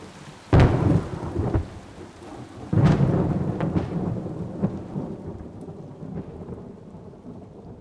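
Thunder over steady rain: two heavy thunderclaps, about half a second in and nearly three seconds in, each rumbling away slowly, with a few sharper cracks between.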